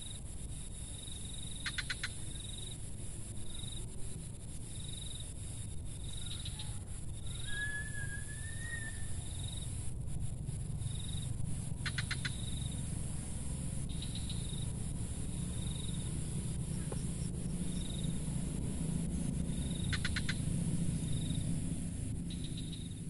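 Insects chirping in short repeated pulses over a steady high hiss, with a single short whistled bird call about eight seconds in. A steady low rumble runs underneath.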